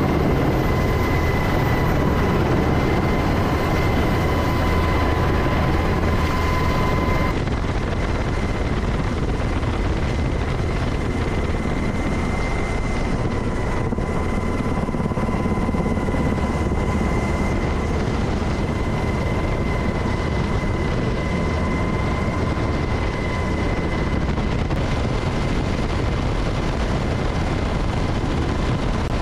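Steady helicopter noise: rotor and turbine running with a steady high whine over a dense rumble. About seven seconds in, the deepest rumble and the highest hiss drop away, while the whine carries on.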